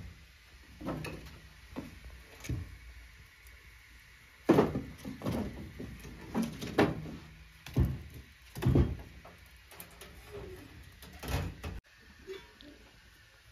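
Split firewood being fed into and shifted in the firebox of a sheet-metal wood-burning stove: a string of irregular wooden knocks and metal clunks, the loudest about four and a half seconds in.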